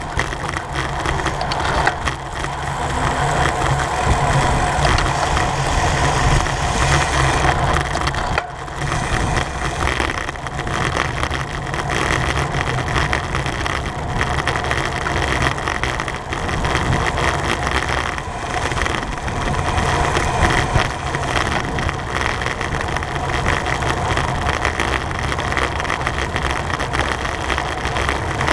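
Steady rush of wind on the microphone of a camera mounted on a racing bicycle at speed, mixed with tyre and drivetrain noise.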